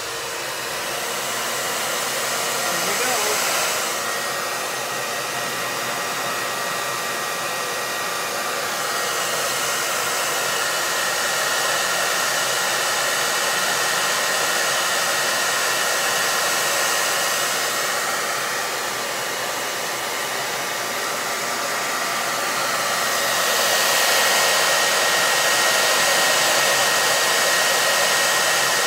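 Handheld blow dryer running steadily: a rush of air with a thin steady whine, swelling and easing a little. It is blowing hot air onto wax paper wrapped over a photo on a wax-coated candle, heating the wax.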